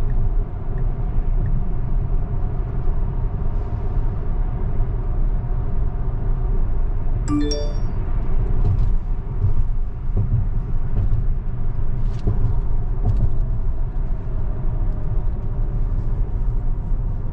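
Steady road and tyre rumble inside a Tesla's cabin as the car drives itself round a wide curve, with no engine note. About halfway through, a short electronic chime sounds.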